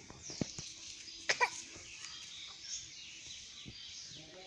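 Many small birds chirping in the background, short quick falling calls overlapping, with a louder double call about a second and a half in and a few soft thuds.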